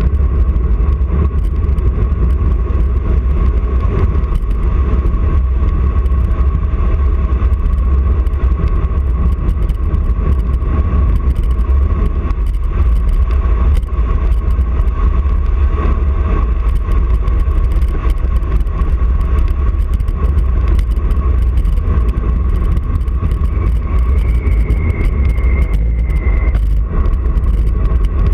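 Wind rushing over an action camera's microphone on a fast road-bike descent: a steady, loud, low rumble of buffeting.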